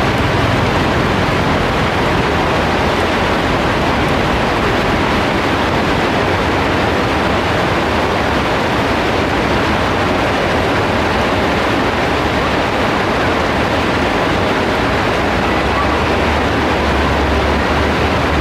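Heavy rain falling in a steady, loud downpour. A low rumble comes in near the end.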